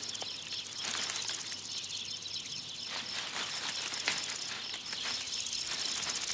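Woodland ambience: a steady high-pitched trill over a background hiss, with scattered short rustles and crackles in dry leaf litter.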